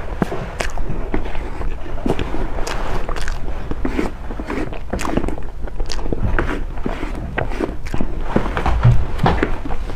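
Close-miked chewing and wet mouth sounds of someone eating soft, creamy taro-paste lava cake: irregular smacks and clicks several times a second.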